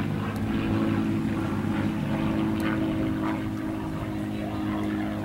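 A steady engine drone: a motor running evenly at one speed, with no change in pitch.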